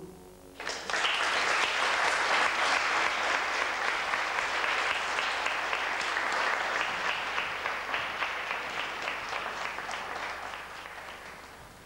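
Audience applauding in a hall. It breaks out about half a second in, loud and dense at first, then thins so that single claps stand out, and fades away near the end.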